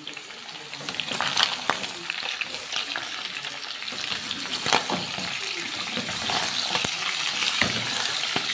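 Sliced red onions and goat meat sizzling as they fry in a metal pan on a gas stove, the sizzle growing louder about a second in. They are being stirred, with sharp clicks and scrapes of the utensil against the pan.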